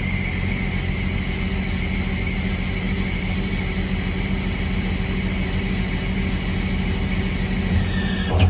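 Miller Enpak engine running steadily with a high hydraulic pump whine over it as the truck's hydraulic outriggers are worked. Near the end the whine sags in pitch and cuts off with a short knock.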